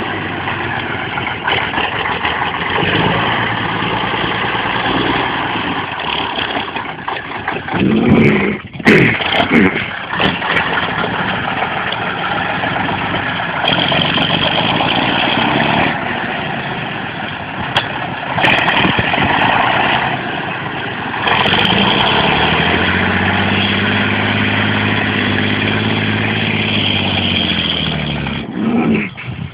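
Praga V3S truck's air-cooled six-cylinder diesel working hard off-road, revving up and down under load. A few loud knocks come about nine seconds in, and near the end one long rev rises and falls.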